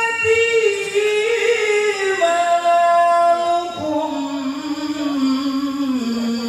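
A man's solo voice chanting unaccompanied into a microphone, in long held, ornamented notes. The melody steps gradually down in pitch, with a brief breath a little before the middle.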